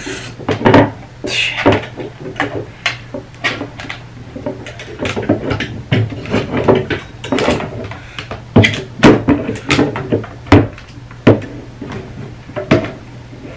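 Rose gold metal wire tiered shelf being put together by hand: irregular clicks, knocks and rattles as the wire frame and white divider panels are pushed and fitted into each other.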